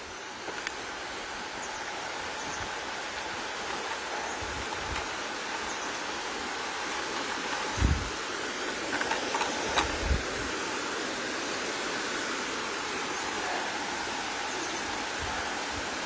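Steady rush of the Spumoasa mountain waterfall, an even hiss of falling water. A few brief low thumps break in about halfway through.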